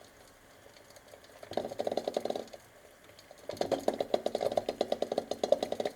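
Eggs boiling in a pot, rattling rapidly in bursts: one short burst about a second and a half in, then a longer, steady run from about three and a half seconds on.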